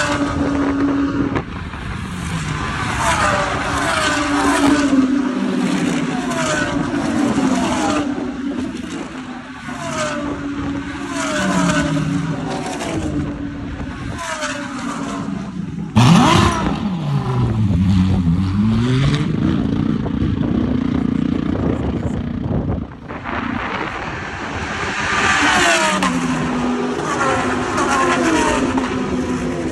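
GT3 race cars passing one after another at speed on the straight. Their engines are at high revs, each note falling in pitch as the car goes by, with quick breaks at the gear changes. The sound changes abruptly twice, about halfway through and again a few seconds later.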